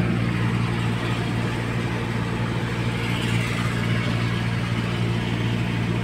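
Car AC blower fan running at a steady level with a continuous droning hum: the AC noise that is being diagnosed.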